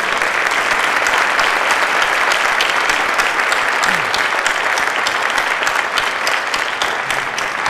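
Audience in a large hall applauding steadily, many hands clapping at once, recognising an honoured police officer who has stood up.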